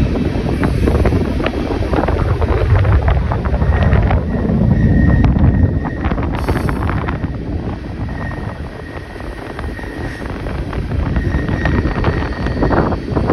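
Wind buffeting the microphone over a low running rumble from a moving vehicle, heavier in the first half, with scattered clicks and rattles and a faint on-and-off high tone.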